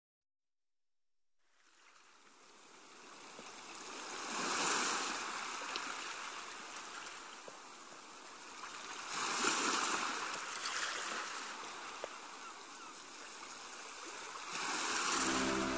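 Surf washing onto a beach, fading in from silence about a second and a half in and swelling three times as waves break, about five seconds apart. Music comes in just at the end.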